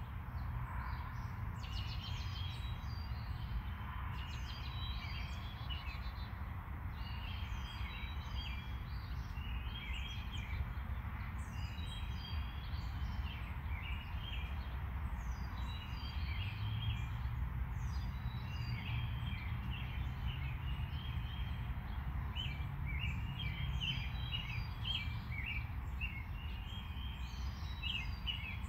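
Small birds chirping and twittering over and over, over a steady low hum.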